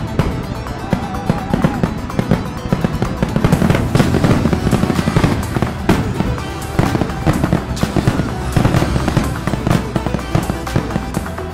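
Aerial fireworks shells bursting, with irregular bangs and crackles over music.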